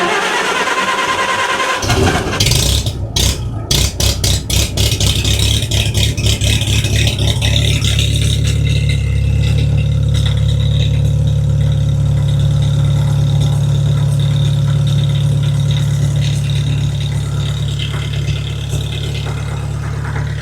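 Farmall tractor engine cold-starting in freezing weather. It cranks, catches about two seconds in, runs unevenly with a few stumbles, then settles into a steady idle about eight seconds in.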